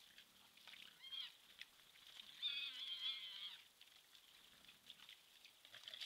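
Faint high-pitched animal calls: a short one about a second in, then a longer, wavering one from about two and a half to three and a half seconds in.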